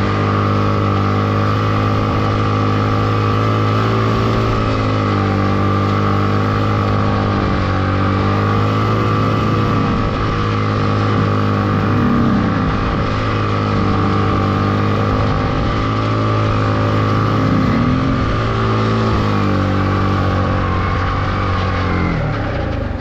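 Yamaha MT15's single-cylinder engine held at high, steady revs with the rear tyre spinning in a long drift, the revs dipping briefly a few times and dropping off near the end.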